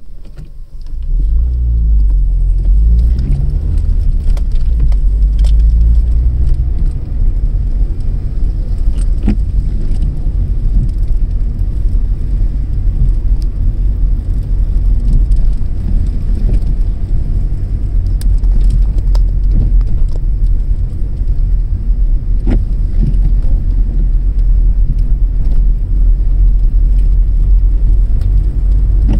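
Car driving along a street, heard from inside the cabin: a steady low rumble of engine and tyres that builds over the first two seconds, with scattered light clicks and rattles.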